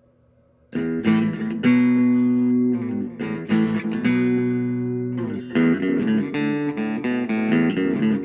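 Telecaster electric guitar played through a Boss Katana Mini amp set with a little gain and a touch of delay: ringing chords and picked notes. The notes come in sharply just under a second in, after a faint hum from the amp.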